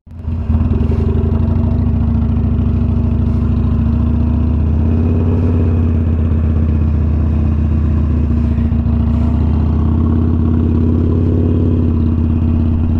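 Harley-Davidson Iron 883 Sportster's air-cooled V-twin running through a Two Brothers Racing Comp S stainless 2-into-1 exhaust, freshly auto-tuned to it, at low road speed. The engine note is steady and deep and starts abruptly at the beginning.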